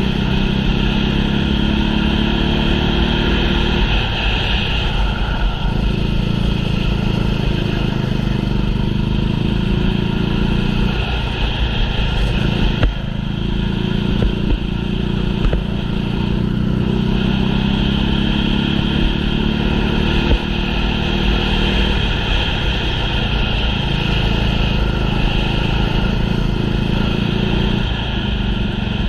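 Racing kart engine running hard through a heat, its pitch climbing as it accelerates and falling back every few seconds as it slows for corners.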